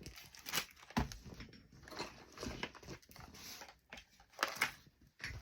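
Irregular rustling, crinkling and light clicks of a fabric lunch tote and craft items being handled and unpacked.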